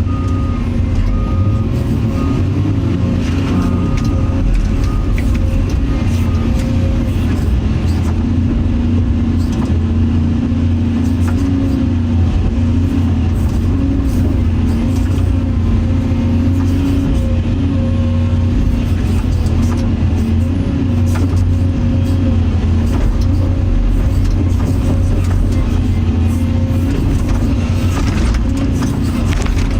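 Caterpillar 336 EL excavator's diesel engine running steadily, a constant low drone with a faint higher whine over it.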